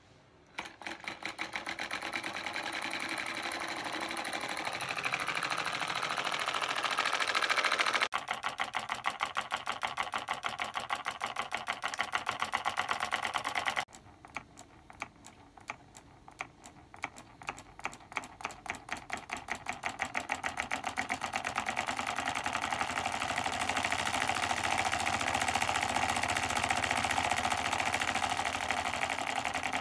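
Homemade solenoid engine, an electromagnet coil pulling a nail plunger that drives a crank and flywheel, running with a fast, even clatter, its switch clicking each time the coil is energized. Partway through it starts again as slow, separate clicks and speeds up into a fast, steady clatter as its supply voltage is turned up.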